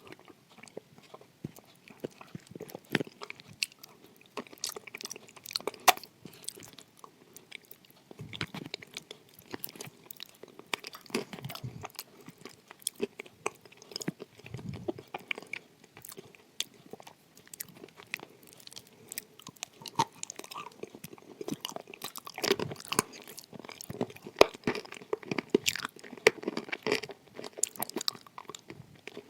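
Close-miked crunching and chewing of edible clay, with many irregular sharp crunches.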